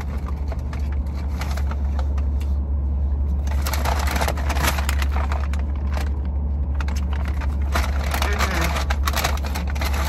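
Paper takeout bag crinkling and rustling as it is handled, starting about three and a half seconds in, over a steady low hum in the car's cabin.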